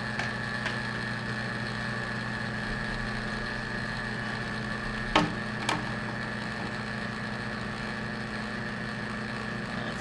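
Hotpoint dishwasher's pump motor running steadily in the drain cycle with the drain solenoid pulled down, pumping the tub water out. It is draining well now that the clogged drain line has been snaked clear. Two light clicks come about five seconds in.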